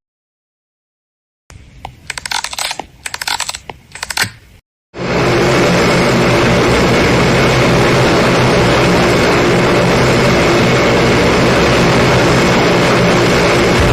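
A few seconds of irregular sharp clicks and knocks, then, about five seconds in, a steady airplane engine drone starts and holds at a constant level with an even hum.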